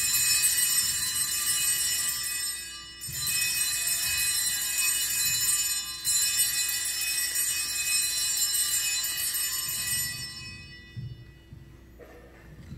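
Altar bells rung three times, each a bright jingling ring of several small bells that carries on for about three seconds, the last dying away near the end. They mark the elevation of the chalice at the consecration.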